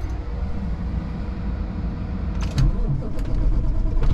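Semi truck's diesel engine idling steadily, heard inside the cab, with a few short clicks about two and a half and three seconds in.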